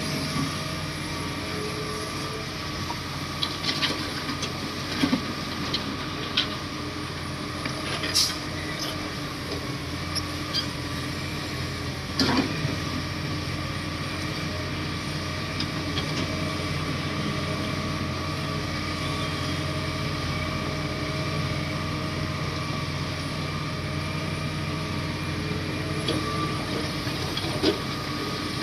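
Komatsu D58 bulldozer's diesel engine running steadily, with a few sharp knocks or clanks in the first half.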